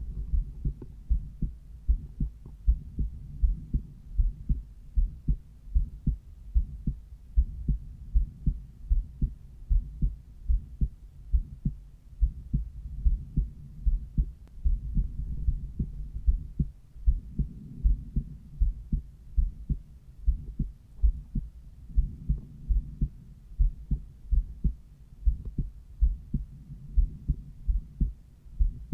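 Human heart sounds heard through a cardiology stethoscope over the pulmonary valve area: a steady, regular lub-dub beat, low and dull, with a faint rumble between beats.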